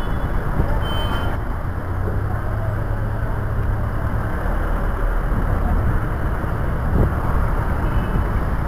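Busy city street traffic: a steady rumble of vehicles with a short high tone about a second in and again near the end.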